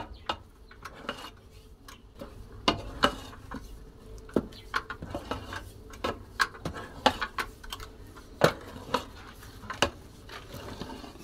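Cooking spoon stirring and pressing stiff maize-flour ugali in a pot, knocking against the pot irregularly, about one or two knocks a second.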